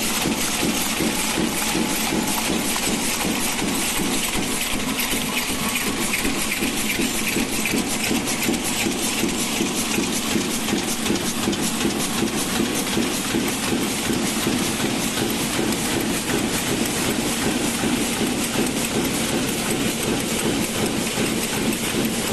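Aerosol can dome making line running: a rapid, steady clatter of the machinery and its conveyors carrying can domes.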